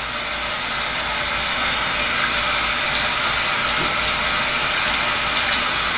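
Bathroom sink faucet running in a steady stream, with soapy hands being rinsed under it.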